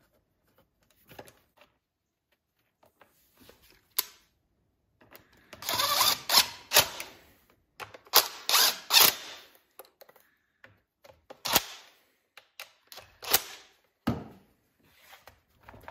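Rear tank bracket being fitted onto a string trimmer's plastic fuel tank by hand: scattered clicks and knocks, with two stretches of scraping and rattling about five and eight seconds in.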